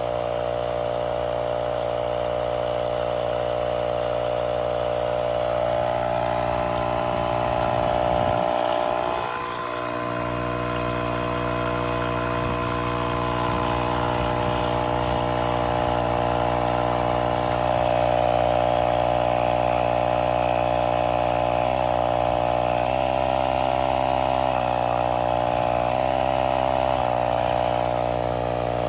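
Small 12-volt tyre inflator compressor from a sealant repair kit running steadily, pumping sealant and air into a flat tyre. Its pitch and level dip briefly about nine seconds in, then steady again.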